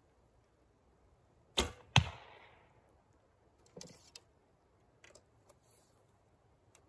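A recurve bow shot: two sharp cracks under half a second apart, the second louder with a brief ringing tail. Then quieter clicks and rattles as another arrow is pulled from a leather hip quiver and nocked.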